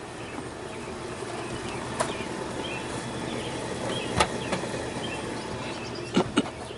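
A few sharp clicks and knocks from handling, the loudest two close together near the end, over a steady outdoor background with faint bird chirps; no engine is running.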